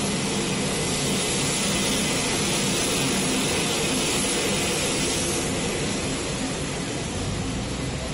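Steady, loud rush of aircraft engine noise on an airport apron, with a low engine rumble growing slightly near the end as an apron bus passes close.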